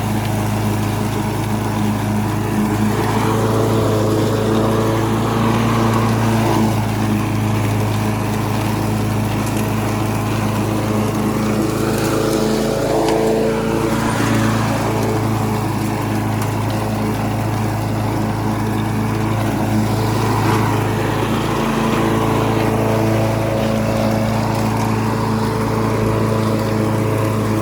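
Gas lawn mower engine running steadily while cutting grass, its pitch holding nearly even with small wavers under load.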